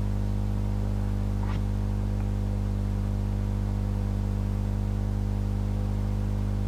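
Steady electrical mains hum with a stack of overtones and a light hiss, unchanging throughout, with a faint brief click about a second and a half in.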